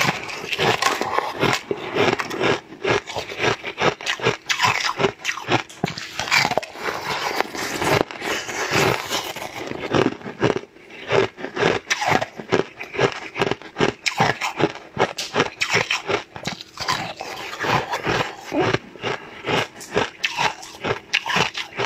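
Close-miked crunching and chewing of pink-coloured ice: a rapid, almost unbroken run of crisp crunches as the ice is bitten and ground between the teeth.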